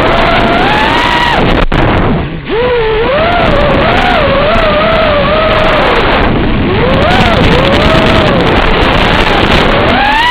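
QAV-R220 racing quadcopter's brushless motors whining, the pitch rising and falling constantly with the throttle, over heavy wind noise on the microphone. The whine drops away briefly about two seconds in, then picks up again.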